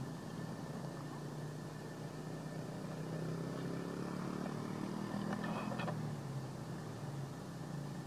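A motor engine's low hum that swells for a few seconds in the middle and then eases off again.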